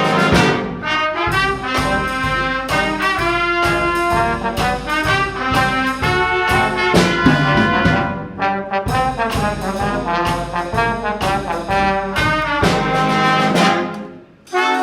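Brass band music, trumpets and trombones playing a rhythmic holiday piece. Near the end the music dies away and a new held chord starts abruptly.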